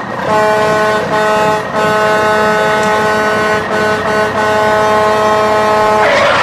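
Vehicle air horn blaring in long steady blasts, broken by a few short gaps, then cut off by a burst of noise near the end.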